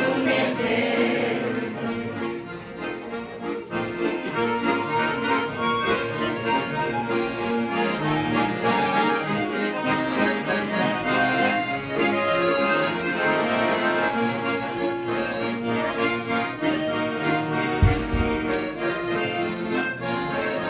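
Piano accordion playing an instrumental passage of a church song, sustained chords under a moving melody, with a single low thump near the end.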